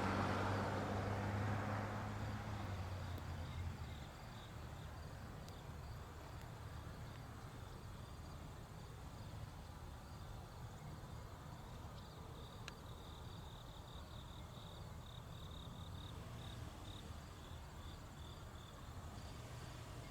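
Crickets chirping in a faint, evenly pulsing trill. A low hum and rushing noise fade out over the first few seconds.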